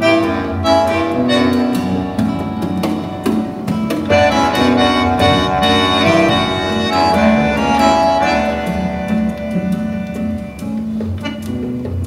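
Recorded instrumental music with sustained, overlapping notes, played back through a pair of Joseph Audio stand-mounted loudspeakers.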